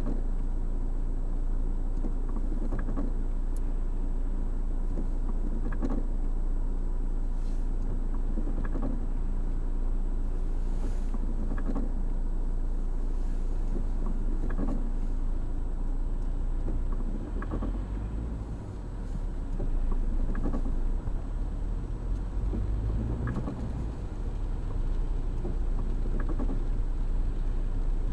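Car interior noise picked up by a windscreen dashcam: a steady low engine hum while stopped in traffic, with a soft stroke roughly every three seconds from the windscreen wipers on a rainy screen. About 18 s in the engine note grows as the car pulls away and speeds up.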